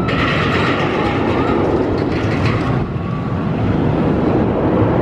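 Arrow Dynamics mine train roller coaster running along its steel track: a steady rumble of the train's wheels on the rails, with extra hiss over the first three seconds or so.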